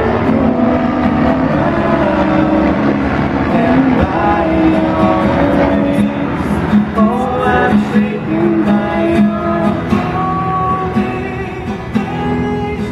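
Live acoustic duet: a man and a woman singing together to a strummed acoustic guitar, amplified through a PA.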